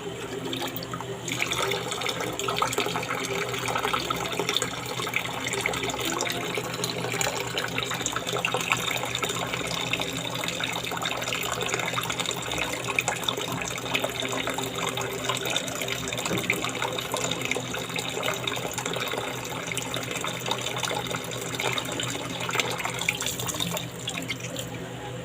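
Tap water running steadily through a pipe and splashing down, the stream poured into one nostril and falling from the other in a jal neti nasal rinse.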